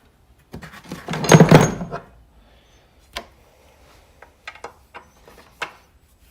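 Hand tools and metal parts clattering in an engine bay: a loud burst of rattling about a second in, then a few scattered clicks and clinks.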